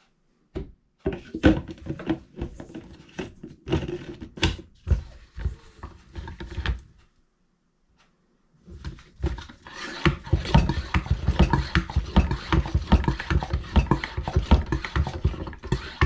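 Plastic pump-up garden sprayer being assembled and pressurized: irregular plastic clicks and knocks as the pump cylinder is fitted and screwed into the jug, then, a little past halfway, a run of quick repeated strokes as the hand pump is worked to build pressure in the tank.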